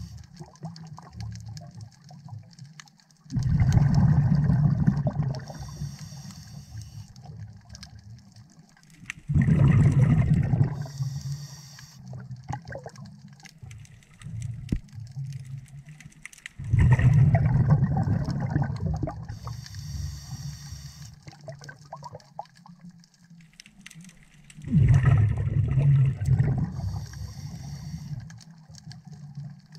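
A scuba diver breathing underwater through a regulator. There are four loud bubbling exhalations about seven to eight seconds apart, each followed a moment later by a short, high hiss of the regulator on the inhale.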